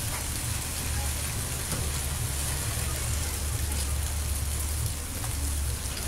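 Heavy rain falling steadily at night, a continuous hiss of rain on roofs and surfaces, with a steady low rumble underneath.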